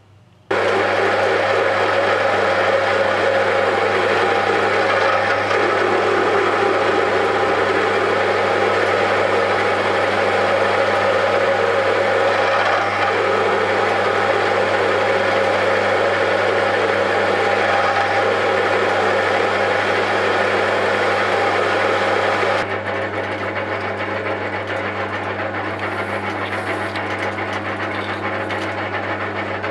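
Metal lathe running while a 20 mm twist drill in the tailstock bores into a spinning metal workpiece, a steady machine hum under the scraping of the cut. It starts abruptly, and near the end it turns quieter and duller as the drill is backed out of the hole with the lathe still turning.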